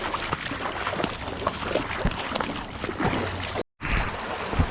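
Creek water running and splashing, with scattered short splashes and knocks. The sound cuts out for an instant about three-quarters of the way through.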